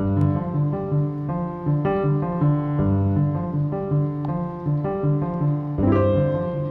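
Background keyboard music that starts abruptly, steady notes of a melody over a repeating bass pattern.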